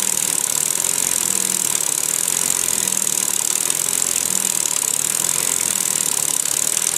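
Small double-acting oscillating-cylinder model steam engine running steadily with a rapid, even exhaust beat, over a steady high hiss.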